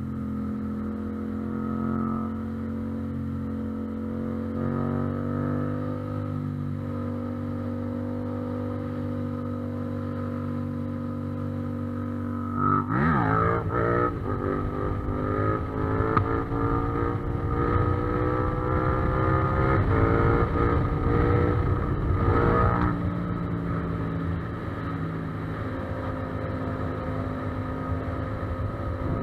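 Yamaha MT-07's 689 cc parallel-twin engine cruising steadily at highway speed. About halfway through the throttle is snapped open and the engine pulls hard, its pitch rising for several seconds, as when lifting the front wheel. Then the throttle closes and it settles back to a steady cruise.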